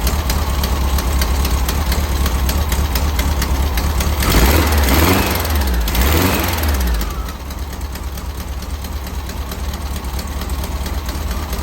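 1964 VW Beetle's air-cooled flat-four engine running just after its first start. Its revs swing up and down about four seconds in, then it drops back to a quieter, steady idle about seven seconds in. The engine has a couple of exhaust leaks.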